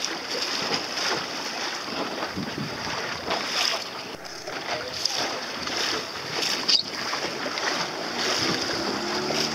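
Wind buffeting the microphone over water lapping and splashing against a small boat's hull on choppy sea, with a single sharp knock about two-thirds of the way through. Faint voices come in near the end.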